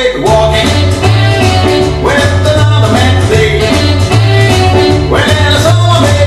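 Uptempo country-style band music with guitar over a steady, walking bass line; the bass comes in just after the start.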